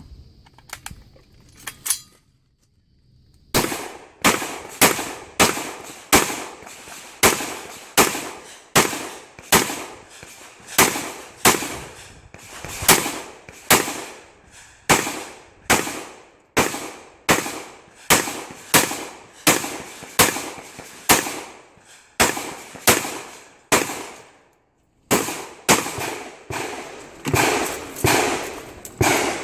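Rifle fire in a timed match string: after a quiet start, a long run of sharp shots begins about three and a half seconds in, roughly one and a half to two a second. It stops briefly near the end before a last few shots.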